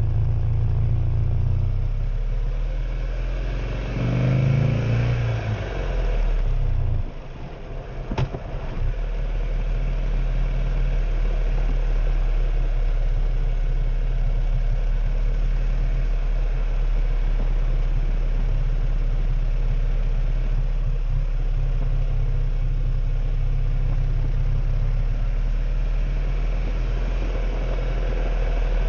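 Buell motorcycle engine running on the move. The revs rise about four seconds in, and the sound drops away briefly around seven seconds, with a sharp click just after eight. From then on it settles into steady cruising.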